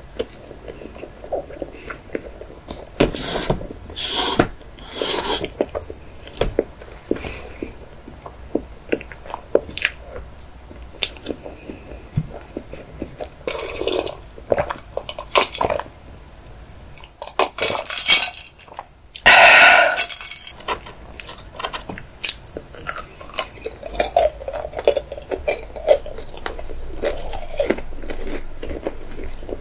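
Close-miked eating sounds: chocolate cake and chocolate sweets being chewed with wet smacks and clicks, with fork and glass clinks and a few gulps of a drink about halfway through.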